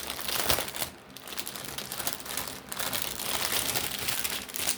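Plastic packaging crinkling and rustling as it is handled, an uneven run of crackles.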